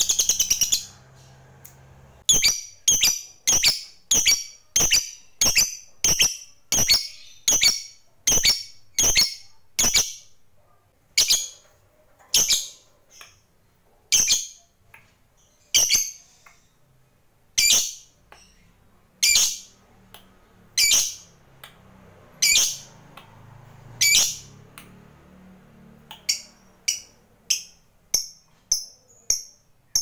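Lovebird ending a rapid chattering trill (ngekek) within the first second, then giving a long series of single sharp, high chirps: about two a second at first, spacing out to about one a second or slower in the middle, and quickening again near the end.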